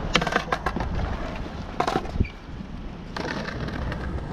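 Skateboard on rough concrete: several sharp clicks and knocks as the board is set down and stepped on, then, about three seconds in, the wheels start rolling with a steady rumble.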